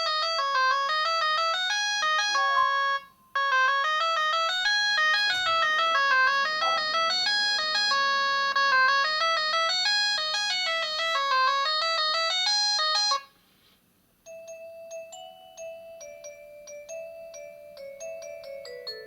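Built-in ringtones of a MaxCom Strong MM917 3G feature phone playing through its loudspeaker one after another. First comes a loud, fast, repeating melody that breaks off for a moment about three seconds in, resumes, and stops after about thirteen seconds. After a second's pause, a quieter, slower tune of struck notes starts.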